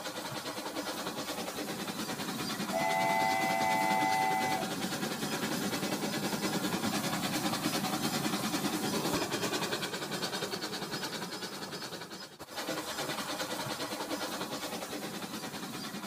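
Remote-controlled toy train running on plastic track, its small motor whirring and wheels rattling steadily. About three seconds in it sounds a short electronic horn lasting about two seconds.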